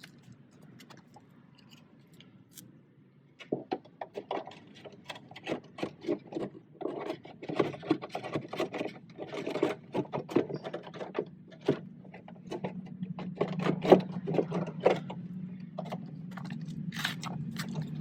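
Hand work on a car door during reassembly: a dense run of clicks, knocks and scrapes of plastic and metal parts being fitted and handled. A steady low hum comes in about two-thirds of the way through.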